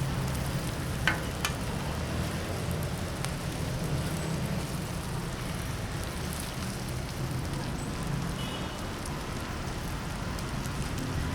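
Food frying in a wok over a gas burner: a steady sizzle over the low rumble of the flame, with one sharp click about a second in.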